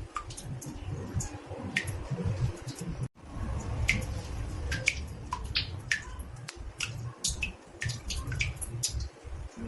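Water drops falling into a bathtub, irregular plinks at about two to three a second over a low rumble, with a brief gap about three seconds in.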